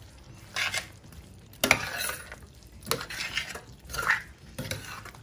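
Metal spoon stirring a chunky curry of chicken wings and potatoes in a stainless steel pan, scraping and clinking against the pan in about five separate strokes.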